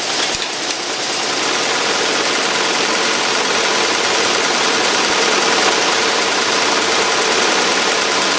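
Multi-needle embroidery machine running at speed, its needle bar stitching dark green thread into felt with a fast, steady mechanical chatter.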